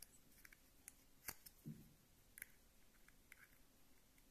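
Faint small clicks and scrapes of a fine tool working at the plastic battery-retaining tab inside a quartz wristwatch, a few sharp ticks scattered over the seconds as the tab is lifted to free the button cell.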